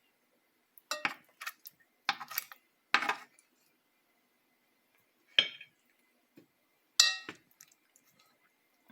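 A metal utensil clinking against a pan and plate as the chicken and sauce are served, in short clusters of sharp clinks. The last clink, about seven seconds in, rings briefly.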